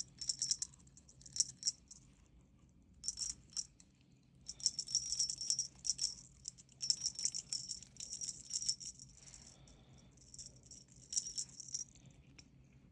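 Light, high rattling in irregular bursts of up to about two seconds, with short pauses between them.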